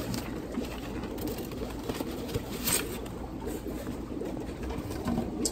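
Steady low hum of aquarium equipment, with a brief rustle of plastic fish bags in a styrofoam shipping box about two and a half seconds in.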